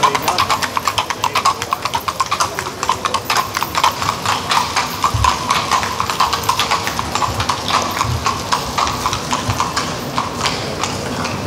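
Horses' hooves clip-clopping on pavement in a quick, dense run of hoofbeats that thins out near the end.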